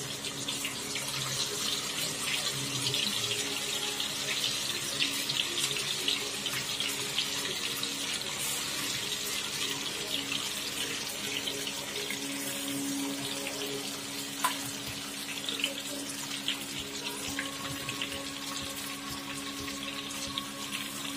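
Marinated chicken pieces deep-frying in hot oil: a steady sizzle full of fine, rapid crackles, from a batch just put into the pan.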